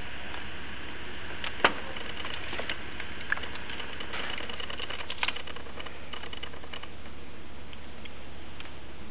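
Sharp clicks and knocks from a socket-fusion tool being handled as the heater plate is pulled off and the softened polyethylene fitting is pushed onto the geothermal pipe and held. There are a few separate knocks, the loudest about a second and a half in, over a steady low hum.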